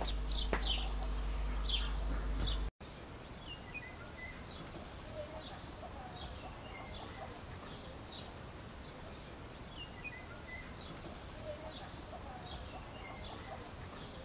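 Small birds chirping, with repeated short high calls that slide down in pitch and some lower chirps. A low rumble underneath drops out briefly about three seconds in, and the birds continue more quietly after that.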